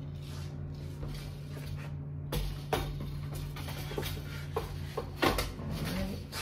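Wooden floor loom being worked on as a harness is fitted: a string of light knocks and clacks of wood and metal hardware, the sharpest about five seconds in, over a steady low hum.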